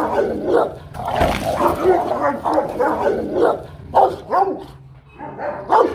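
Rottweilers barking aggressively at each other in rapid, overlapping barks, a brief lull about five seconds in: two rival dogs confronting each other.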